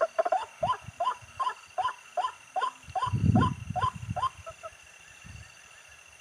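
An animal calling at night: a run of about a dozen short rising calls, two or three a second, that stops a little after four seconds. A steady high insect drone sits underneath, and a low rumble comes near the middle.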